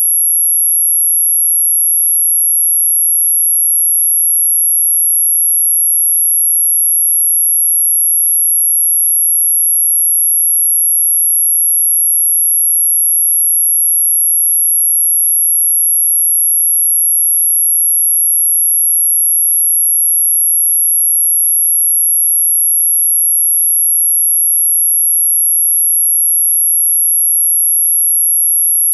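A single steady, very high-pitched pure sine tone, loud and unchanging, played as an anti-mosquito repellent sound.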